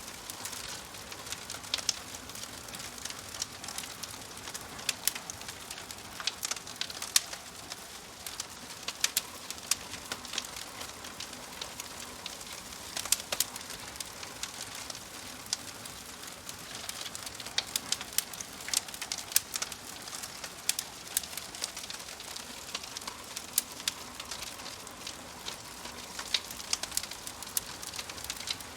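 Wood fire burning in a fireplace: a steady hiss with many irregular sharp crackles and pops as the logs burn.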